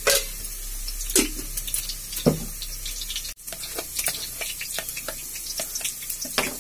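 Water splashed into a plastic box of dry ground spices three times, about a second apart, then a spoon stirring the wet spice paste with many light quick clicks and scrapes.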